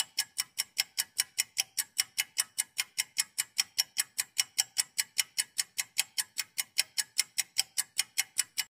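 Fast, even ticking, about five ticks a second, that starts and stops abruptly out of dead silence: a clock-like ticking sound effect.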